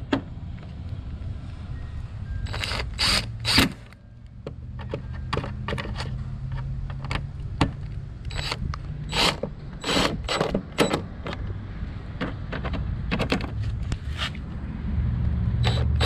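A cordless power driver running screws into the plastic control-panel plate of a zero-turn mower, with many sharp clicks and small metal clatters over a steady low hum.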